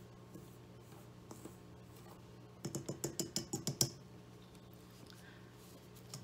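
Wire whisk stirring bath bomb powder in a stainless steel bowl, with faint scraping and clicks. About three seconds in, a quick run of about ten sharp clicks lasts roughly a second as the whisk strikes the metal bowl.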